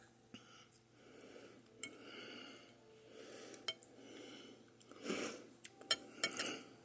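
Cutlery clicking against a plate several times while someone eats, with quieter rustling sounds of chewing and breathing between the clicks.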